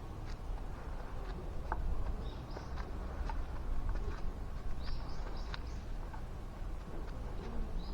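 A few short, high bird chirps over a steady low background rumble.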